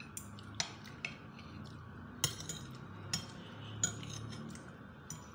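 Metal fork and spoon clinking and scraping against a ceramic plate during a meal: about half a dozen sharp clinks, the loudest a little over two seconds in.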